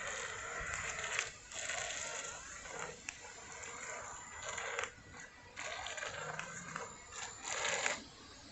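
Remote-control toy gator boat running on the water in spurts, its small propeller churning and spraying water with a crackly hiss that cuts out briefly a few times and stops near the end.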